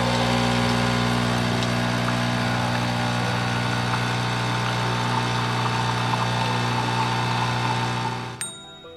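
De'Longhi Nespresso capsule coffee machine brewing: its pump buzzes steadily with a low hum while coffee pours into the cup, then stops abruptly near the end.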